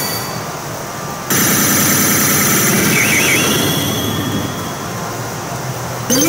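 Toyomaru P Road Pharaoh pachinko machine playing its electronic sound effects as the seven-segment digit display changes: a louder, shrill effect cuts in about a second in, with a brief warbling chirp around three seconds, and a rising siren-like sweep starts near the end.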